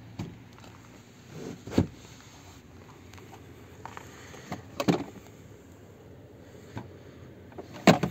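A run of sharp plastic knocks and clunks as a car's interior fittings are handled: a padded seat panel is flipped and storage compartment lids are opened and shut. The loudest clunk comes near the end, with smaller ones about two and five seconds in.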